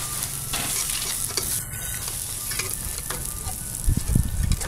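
Egg omelette with diced vegetables sizzling in oil in a stainless steel pan, with a metal spatula scraping and clicking against the pan. A few low thumps about four seconds in.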